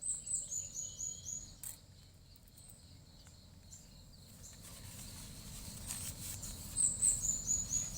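A bird singing in the forest: a quick run of high, thin notes that step down in pitch, once at the start and again near the end, over a low steady outdoor background.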